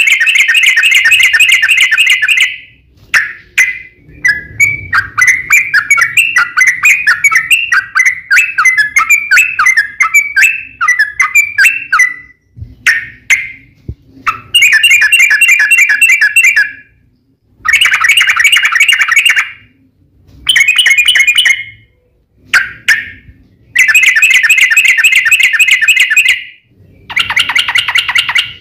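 Yellow-vented bulbul (trucukan) fighting song: loud bursts of rapid, bubbly chattering notes. A long run of quick notes lasts about eight seconds, and shorter phrases follow with brief pauses between them.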